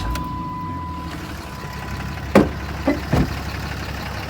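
Truck engine idling just after being started. A steady warning-chime tone stops about a second in, and three sharp knocks come between two and three seconds in.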